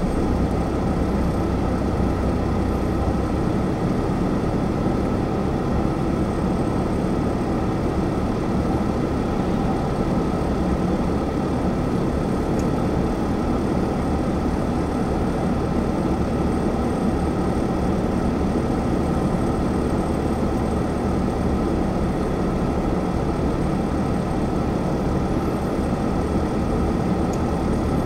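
Car driving along a road: steady engine and tyre noise heard from inside the cabin.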